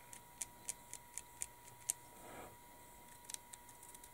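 Light, sharp clicks, about four a second for two seconds and a few more near the end: the tip of a weathering pencil tapping on the plastic wheel hubs of a small scale-model truck.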